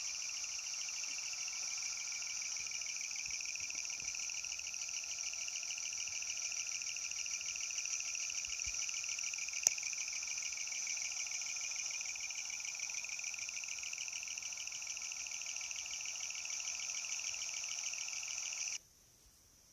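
A steady, high insect chorus with a fast, fine pulsing that cuts off abruptly near the end. A single sharp click comes about halfway through.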